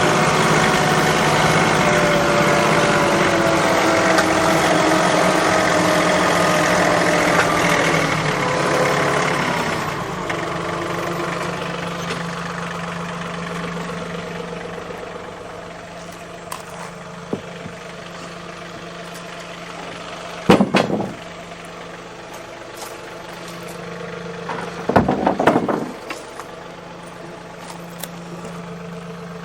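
An engine running, its pitch falling and its level dropping about nine seconds in as it settles to a quieter, steady idle. Two short, loud clattering bursts come near the middle and about two thirds of the way through.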